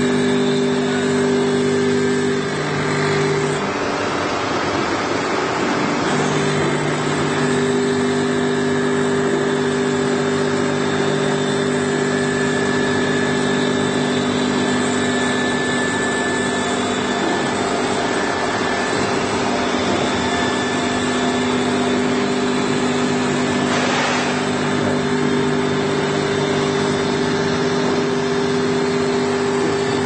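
A 1000 mm automatic knife grinding machine running steadily, with a constant motor hum over a rushing noise. The hum tones drop out for a couple of seconds about four seconds in, then return.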